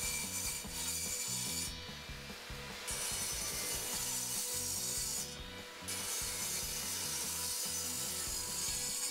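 Benchtop table saw running and crosscutting a 2x6 board, the blade hissing through the wood over the motor's steady whine. The cutting sound eases twice for about a second before picking up again.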